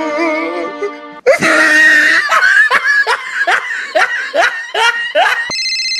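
Instrumental background music cuts off about a second in, and a burst of laughter follows: a run of falling 'ha-ha' laughs. Near the end a steady electronic mobile phone ringtone starts.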